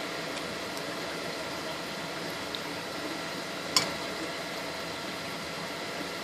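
Steady low hiss with a faint hum underneath, and a single sharp click a little under four seconds in.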